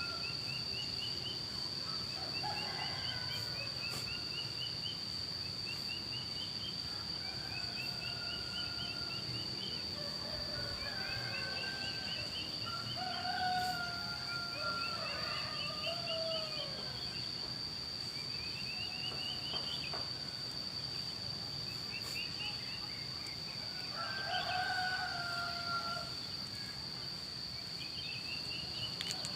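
Roosters crowing now and then, answering one another, the loudest crows about halfway through and near the end. A songbird repeats a short phrase of rising ticks every couple of seconds over a steady high-pitched whine.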